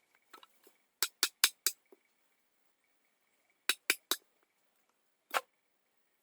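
A series of sharp, hard knocks: four quick strikes in a row, then three more a couple of seconds later, then one last single strike.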